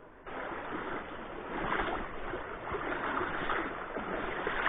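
River water rushing and splashing, a churning, uneven noise that starts abruptly just after the beginning.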